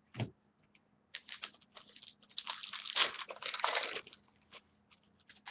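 Crinkling and rustling of a foil trading-card pack wrapper being torn open, with cards being handled. It is a dense run of crackles that starts about a second in, is loudest between about two and a half and four seconds, then dies away.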